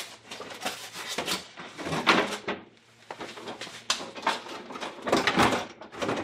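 Plastic case halves of a GE portable air conditioner being pulled apart and lifted off by hand: a run of irregular clicks, knocks and scraping of plastic.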